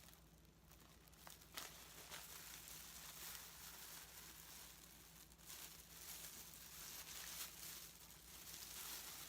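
Faint rustling and crinkling of a package and its contents being handled, with a few small clicks in the first couple of seconds, over a steady low hum.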